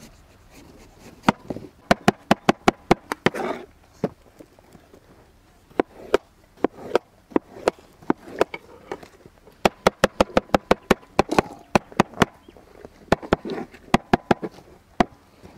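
Kitchen knife chopping watermelon on a cutting board: quick runs of sharp knocks as the blade cuts through the flesh onto the board, in several runs with short pauses between them.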